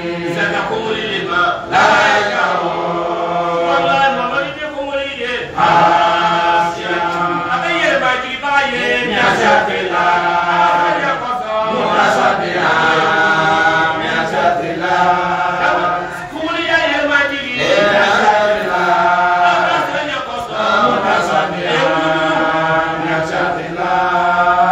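Islamic religious chanting by a man's voice, sung in long melodic phrases of a few seconds each with held, wavering notes.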